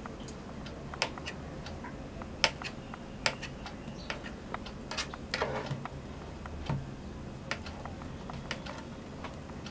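Small kitchen knife cutting boiled potatoes into chunks, its blade tapping on the cutting board in irregular sharp clicks, one or two a second.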